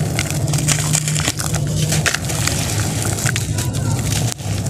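Dry red sand-cement chunks crumbled between the fingers, with a dense run of fine crackles as grit and crumbs fall into a bowl of water. A steady low hum runs underneath.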